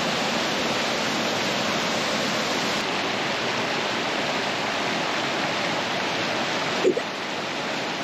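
Creek waterfall cascading over rock: a steady rush of falling water.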